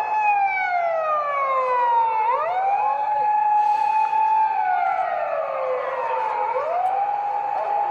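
Japanese police car siren sounding a slow wail. It holds a high note, slides slowly down for about two seconds, then swoops quickly back up and holds again, twice in a row.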